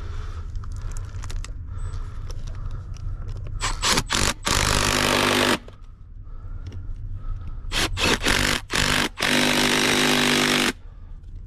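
A machine engine running steadily, with two loud rushes of scraping noise, about a second long each, near four and nine seconds in, each preceded by a few sharp knocks.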